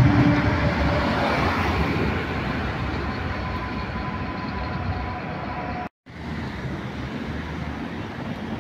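A tram running on city street tracks amid traffic noise, with a faint steady whine that is loudest at the start and eases off. The sound drops out for a moment about six seconds in, and general street noise follows.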